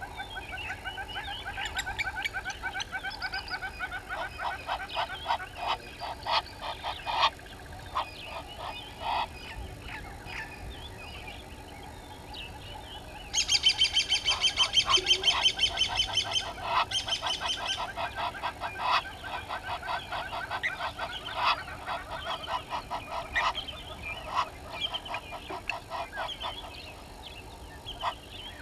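Helmeted guineafowl calling: harsh, rapidly repeated cackling notes, with a louder, faster rattling run around the middle.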